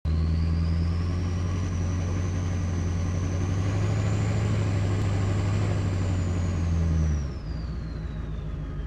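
Hummer H1 engine running steadily with a high whistle that rises, holds, then falls away; about seven seconds in the engine note drops off and quietens.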